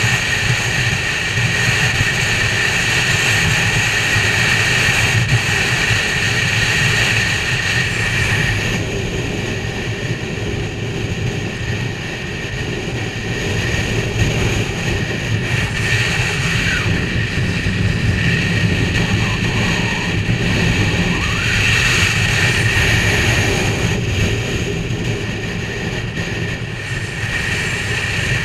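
Motorcycle running steadily at road speed, its engine drone mixed with wind noise on the bike-mounted camera.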